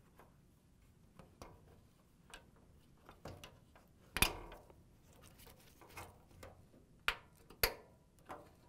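Scattered light clicks and knocks of plastic wire-harness clips being twisted loose from a dryer's sheet-metal brace while the harness cables are handled. The loudest is a sharp click about four seconds in, with two more close together about seven seconds in.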